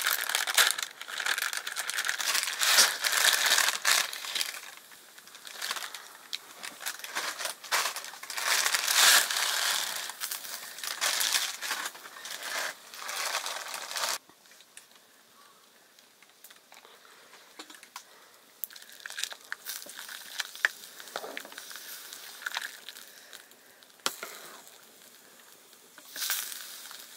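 Crinkling, crushing rustle full of small clicks, busy and fairly loud for about fourteen seconds, then dropping abruptly to faint scattered clicks and rustles, with one short louder rustle near the end.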